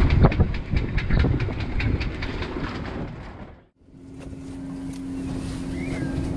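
Loud rushing noise and rapid clattering on a sailboat's deck in strong wind, several clicks a second, fading away about three and a half seconds in. After that comes a quieter rush with a steady low hum.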